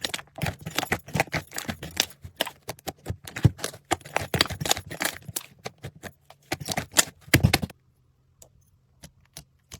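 Slime being squished and worked, giving rapid, irregular sticky clicks and pops that stop about three-quarters of the way through, leaving only a few faint ticks.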